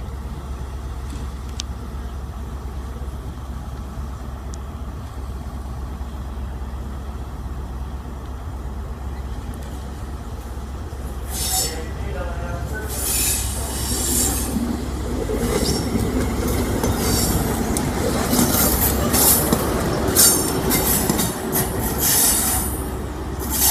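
Class 43 HST power car diesel engines running with a steady low rumble. About halfway through, the departing ScotRail HST grows louder as it passes close by, its engine rumble building under a run of short, high-pitched wheel squeals.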